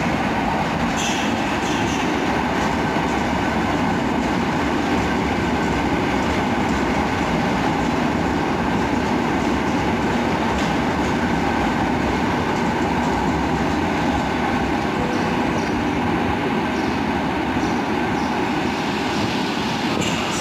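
Koleje Dolnośląskie electric multiple unit running along a station platform: a steady rumble of wheels on rails and running gear.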